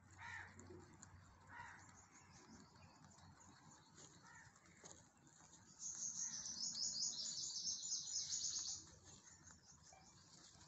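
A small bird twittering: a rapid, high-pitched run of chirps lasting about three seconds, starting a little past the middle, with a few fainter calls before it.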